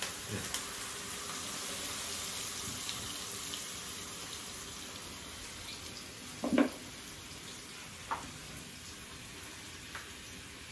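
Diced bacon sizzling in a frying pan as cream is poured over it: a steady hiss that slowly fades. One short, louder sound breaks in about six and a half seconds in.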